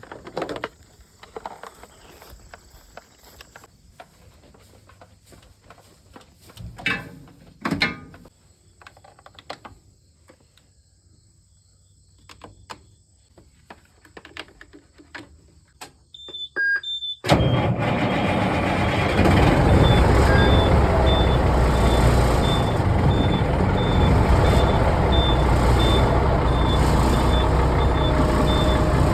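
Scattered light clicks and knocks at first, then about seventeen seconds in a heavy dump truck's engine starts up on a jump start after its battery went dead from sitting all season, and keeps running loudly. A high beep repeats over the engine at short, even intervals.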